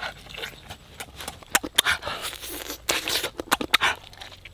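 Eating sounds of a cooked whole chicken being bitten and torn apart with the teeth: irregular wet chewing clicks and smacks, with a rougher tearing noise about two to three seconds in.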